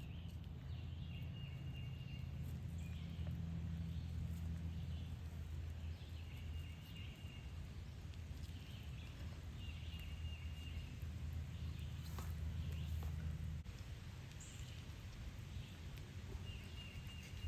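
Outdoor background sound: a low steady hum that stops suddenly about three-quarters of the way through, with short high-pitched chirps repeating every second or so and a few faint clicks.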